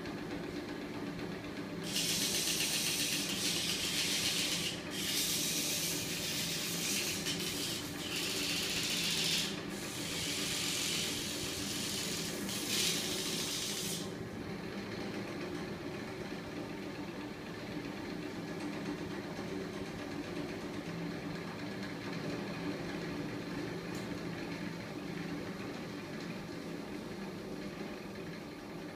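Homemade magnet-engine rig driven by a small 24 V electric motor, running steadily with a mechanical hum from its motor and spinning flywheel. From about two seconds in to about fourteen seconds, a loud hiss comes in several bursts with short breaks.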